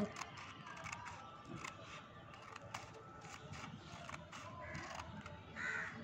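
Small scissors cutting paper: a few faint, soft snips. A bird calls in the background, loudest once near the end.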